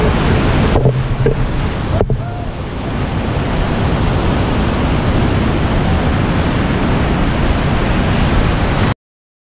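Loud, steady rush of big whitewater in Hance Rapid on the Colorado River, waves breaking around a raft, heard from on board the boat. The sound cuts off abruptly about nine seconds in.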